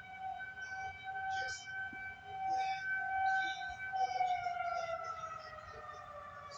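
A long, siren-like tone with strong overtones, the 'trumpet sound', held at one pitch and then sliding slowly down from about four seconds in, like a siren winding down.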